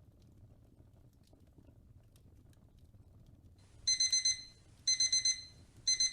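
Digital timer alarm beeping: three quick clusters of high beeps, about one cluster a second, starting about four seconds in. It marks the end of a 25-minute pomodoro study block. A faint fireplace crackle runs underneath.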